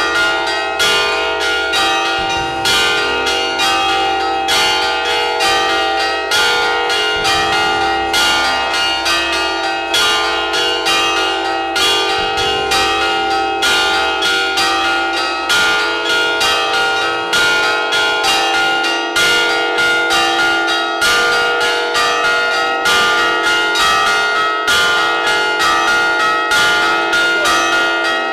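Church bells of an Orthodox chapel's bell gable rung by hand with ropes pulling their clappers. It is a continuous fast peal of overlapping strikes, several a second, with the bells' tones ringing on between them.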